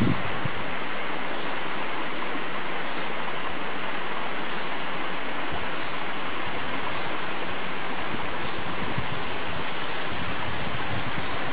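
A stream's cascading water rushing steadily and evenly, with no change in strength.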